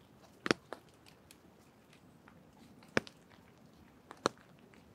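A few sharp, crunchy snaps at uneven intervals: a close pair about half a second in, then single ones near three and a bit after four seconds, over a faint steady hush.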